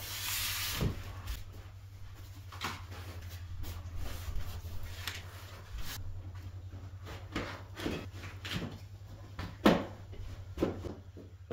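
Carpet being handled over a seam: a brief scuffing rub at the start, then scattered soft thumps and rustles as the broadloom carpet edge is flipped over the seam tape and dropped into place, the loudest thump about 10 s in. A steady low hum runs underneath.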